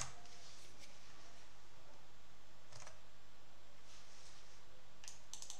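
A few sharp clicks of a computer mouse and keyboard: one at the start, one near the middle, then a quick run of three or four near the end, over a faint steady hum.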